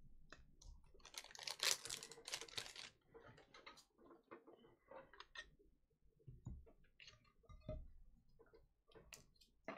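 Faint scattered clicks and taps, with a short rustling burst about a second in: small objects being handled close to the microphone.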